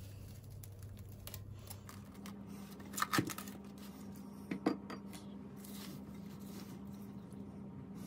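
Cling film being pulled and stretched over a glass mixing bowl: two short crinkling, squeaky bursts about three and four and a half seconds in, over a low steady hum.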